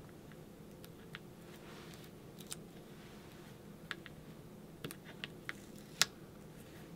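Paper stickers and foam adhesive squares being handled by hand: scattered small clicks and taps as backing paper is picked and peeled off, the sharpest tap about six seconds in, over a steady low hum.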